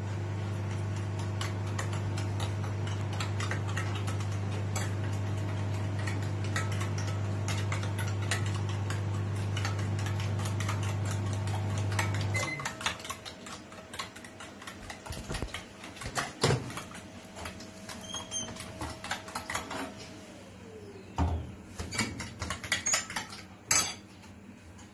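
A metal spoon stirring beaten eggs and sugar in a ceramic bowl, clinking and scraping against its sides in many quick taps, stirring until the sugar dissolves. A steady low electrical hum runs beneath and stops about halfway through.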